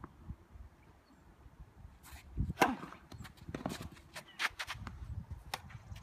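Tennis rally on a hard court: a tennis ball being struck by rackets and bouncing, heard as separate sharp pops after a quiet start. The loudest pop comes about two and a half seconds in, and several lighter ones follow.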